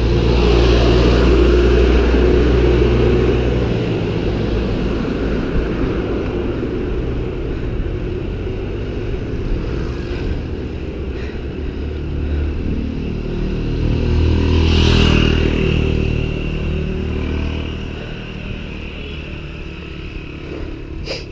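Wind rushing over the microphone and road noise from a bicycle ride on asphalt, with motor vehicles going past: a loud low rumble near the start, and another vehicle swelling and fading about two-thirds of the way through.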